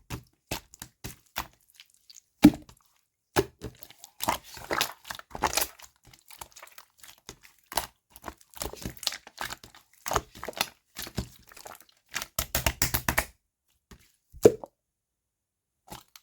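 Hot pink 'pongdang' slime being squished and stretched by hand, giving off bursts of sharp wet clicks, pops and plops with short pauses between them.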